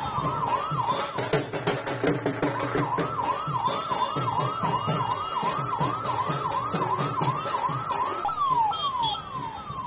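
Electronic siren yelping, its pitch swinging up and down about three times a second, then switching to a run of falling sweeps near the end.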